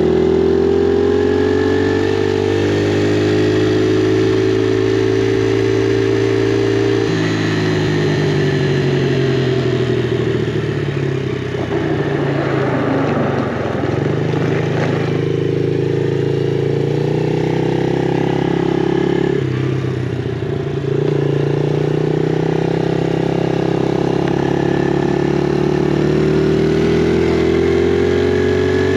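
Small single-cylinder four-stroke off-road engine running under throttle while riding. Its pitch climbs steadily, then steps down sharply about seven seconds in and again about twenty seconds in before climbing again.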